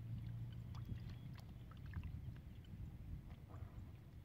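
Faint sloshing and small splashes as hands feel about in a shallow, muddy water hole, over a low steady rumble.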